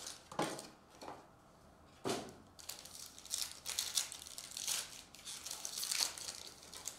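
Foil trading-card pack wrapper crinkling and tearing as it is ripped open by hand, a dense irregular crackle that starts sharply about two seconds in.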